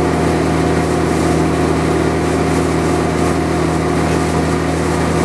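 TIG welder under load at about 80 to 100 amps, making a silicon bronze braze weld: a steady, loud electrical hum with a hiss over it.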